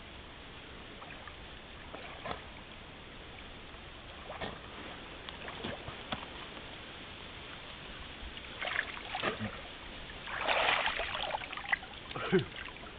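Intermittent water splashing and sloshing, a few scattered splashes at first, then busier and loudest about ten to eleven seconds in.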